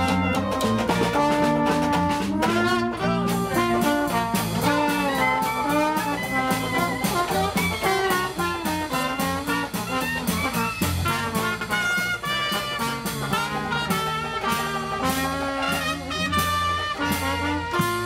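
Dixieland jazz band playing live: trumpet and clarinet lines over strummed banjo and guitar, with a steady beat.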